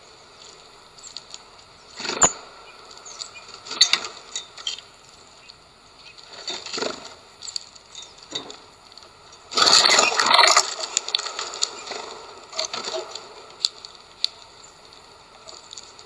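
Eurasian bullfinches feeding at a seed tray: scattered sharp clicks and taps of beaks on sunflower seeds and the wooden platform. Just after the middle comes a louder rustling burst lasting about a second.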